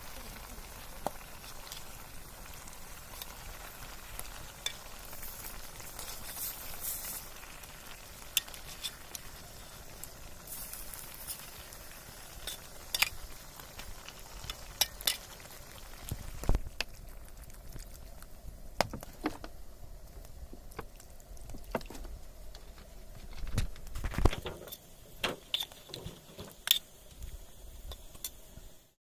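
Chicken and potato curry simmering in a metal pot over a wood fire, a steady bubbling sizzle with a metal ladle stirring and knocking against the pot. Sharp clicks and knocks are scattered throughout. The sizzle grows fainter a little past halfway, with a louder cluster of knocks near the end.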